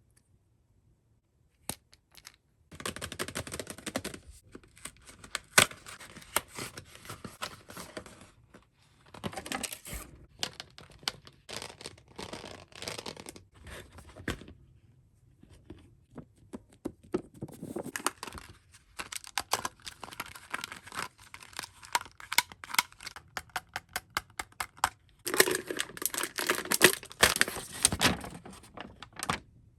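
Toy packaging being torn open and crinkled by hand, in several bouts of crackling and tearing with sharp clicks and snaps. It starts after a couple of seconds of near silence, and the last bout is the loudest.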